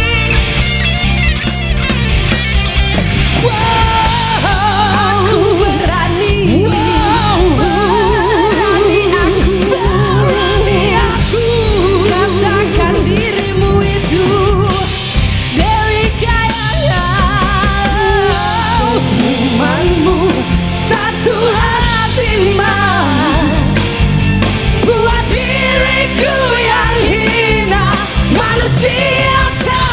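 A live band plays a loud, steady rock-pop song, with long wavering melodic lines from a sung or lead part.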